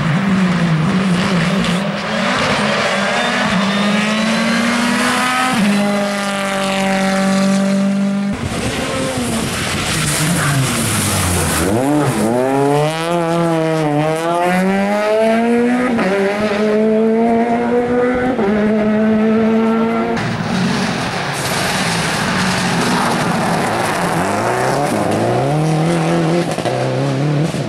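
Rally cars driven hard past the camera one after another: engines revving high, the pitch climbing and dropping back at each gear change. One car brakes hard with the revs falling deep, then accelerates back up through several gears.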